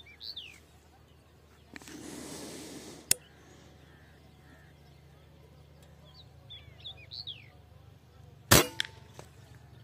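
A single shot from a P10 PCP air rifle about eight and a half seconds in: a sharp crack with a short ringing tail, the loudest sound here. Earlier there are a few faint bird chirps and a single click.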